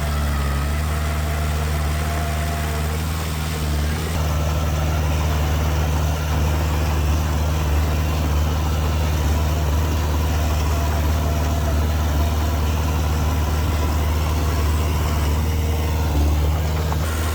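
Heavy diesel engine of earthmoving machinery running steadily with a deep low drone, a little louder from about four seconds in.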